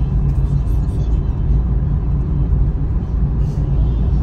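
Steady low rumble of a car driving along, its engine and tyre noise heard from inside.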